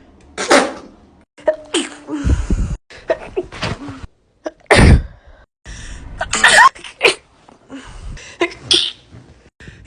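A person sneezing again and again, a string of separate loud sneezes with short breaths between, the loudest about five seconds in.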